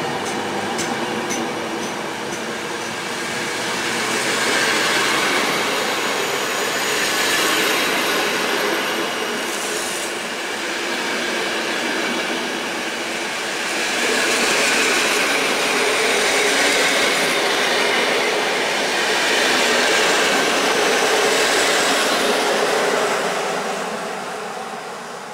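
PKP Intercity passenger coaches rolling past on the rails, wheels clicking over rail joints and squealing at times. The rushing sound swells and eases, then fades as the last coach goes by near the end.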